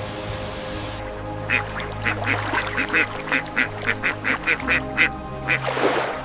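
An animal calling in a rapid run of about fifteen short calls, about four a second, that stops about a second before the end. A steady music bed runs underneath, and a short rushing swell comes near the end.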